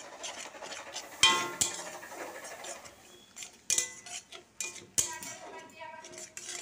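Metal spoon scraping and knocking against a metal kadai while stirring a masala paste. Several sharp clinks come through, the loudest about a second in, ringing briefly.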